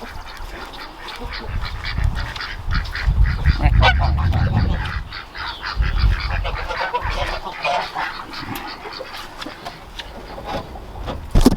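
Farmyard geese and ducks honking and quacking in many short, overlapping calls, with a low rumble through the middle and a sharp loud knock near the end.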